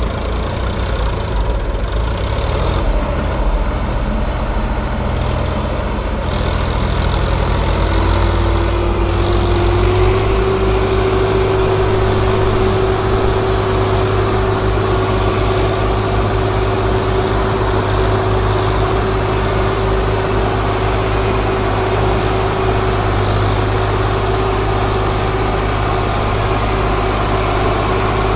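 Swaraj 744 XT tractor's three-cylinder diesel engine running hard under heavy load, pulling a fully loaded soil trolley with enough strain to lift its front wheels. A steady whine joins in about eight seconds in, steps up slightly and holds.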